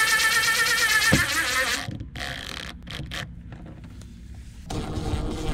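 Cordless DeWalt drill driving a screw into a hatch frame, its motor whining for about two seconds and then stopping; it starts whining again near the end on the next screw.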